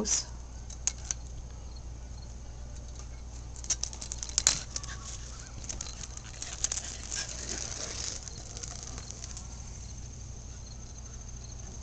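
A puppy dragging a rubber garden hose over a concrete patio and grass: light scraping and pattering with scattered clicks, the sharpest about four and a half seconds in.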